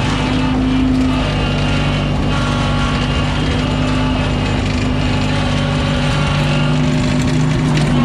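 Air-cooled Wisconsin gasoline engine of a New Holland L775 skid steer running steadily as the machine drives along.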